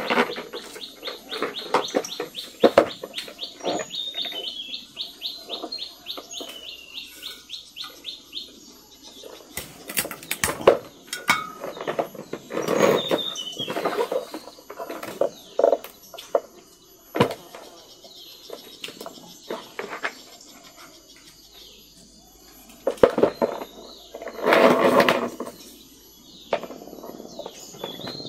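Clicks and knocks of plastic poultry feeders and cord being handled. A fast, even, high chirping trill runs in the background for the first eight seconds or so, and there is a louder burst of noise near the end.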